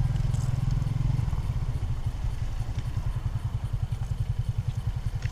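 A small engine running steadily with a low throb, which turns into a fast, even pulsing about a second in.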